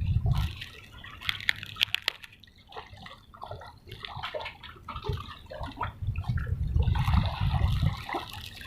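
Water sloshing and dripping, with small scattered splashes. A low rumble fades at the start and comes back about six seconds in.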